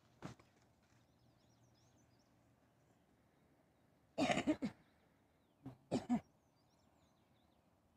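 A person coughing: a short run of coughs about four seconds in, then two or three more just before and after six seconds, over faint high bird chirps.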